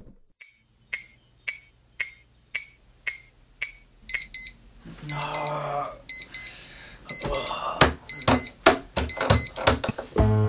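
A clock ticking about twice a second, then, about four seconds in, an Elgin digital alarm clock going off in short high beeps in quick pairs. Rustling and several sharp knocks come in under the beeping near the end.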